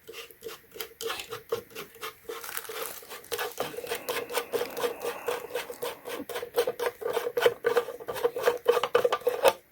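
Rapid clicking and scraping of a plastic submersible pond pump being handled, growing louder toward the end, over a faint steady hum.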